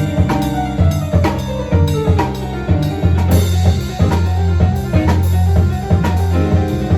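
Drum kit with bass drum, snare and rimshots keeping a steady groove, played along with a pitched instrument carrying sustained low bass notes and a melody.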